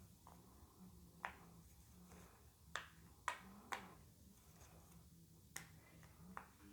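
Silicone bubbles of an Among Us pop-it fidget being pushed through one at a time, giving about seven sharp, separate pops at an uneven pace.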